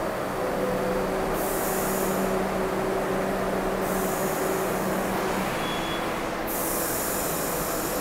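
R62A subway train standing at the platform with a steady hum, then three bursts of air hiss as its brakes release, with a short high beep near the middle; it begins to pull out near the end.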